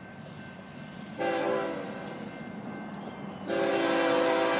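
Diesel locomotive air horn, a chord of several tones, sounding a short blast about a second in and then a long blast near the end.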